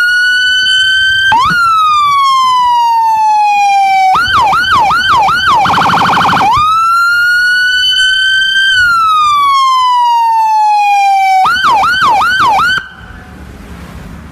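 Electronic emergency-vehicle siren cycling through its tones: a slow wail rising and falling, a quick run of four yelp sweeps, a very rapid warble, another slow wail, and four more yelp sweeps. It then cuts off abruptly about a second and a half before the end, leaving a much quieter steady noise.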